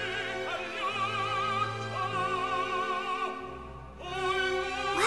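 Operatic singing: long held notes with strong vibrato, fading briefly about three and a half seconds in before the singing picks up again.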